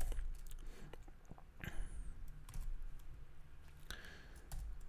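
Faint, sparse typing on a laptop keyboard: scattered single key clicks.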